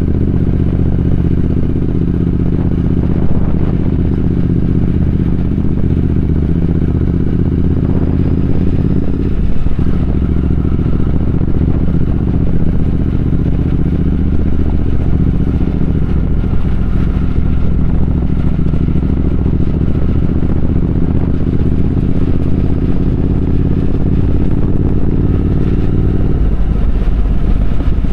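Triumph Speed Twin 1200's parallel-twin engine running steadily while riding. The note breaks briefly about nine and a half seconds in, and drops to a deeper rumble near the end.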